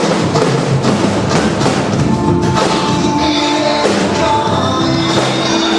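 Loud music with a steady beat and held melody notes.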